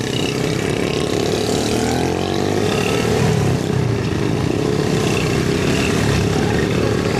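Small motorbike and scooter engines running as a group of riders pulls away, engine pitch rising and falling.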